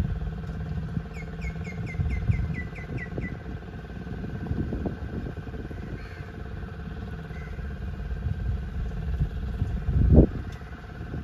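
Boat engine running steadily. About a second in, a bird calls a quick run of about eight short falling notes, and near the end there is one brief thump.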